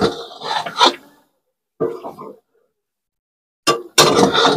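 Slotted metal spatula scraping and stirring through chicken curry in a steel kadai: a clack on the pan, then a scraping stroke, a shorter stroke near two seconds, and another clack followed by a longer, louder scrape near the end.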